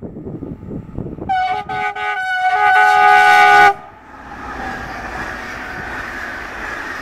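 Siemens Vectron electric locomotive sounding its horn as it passes with a passenger train: a chord of several tones, a couple of short blasts running into a long one that grows louder and cuts off sharply a little before four seconds in. Then the steady rush of the coaches' wheels rolling past on the rails.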